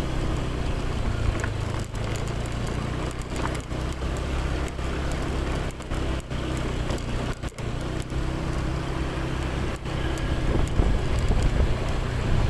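An engine running steadily with a low hum, with wind noise on the microphone.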